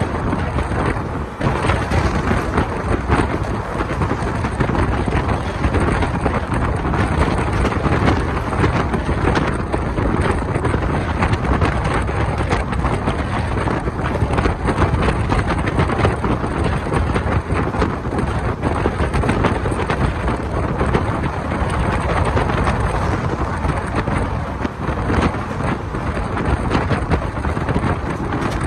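Wind rushing over a microphone held out of a moving passenger train's window, mixed with the steady running rumble of the coach on the rails.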